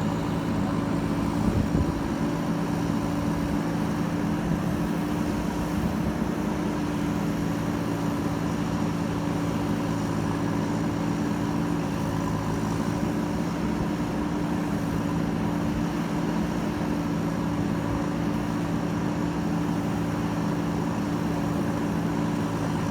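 JCB backhoe loader's diesel engine running at a steady speed, with a brief knock about a second and a half in.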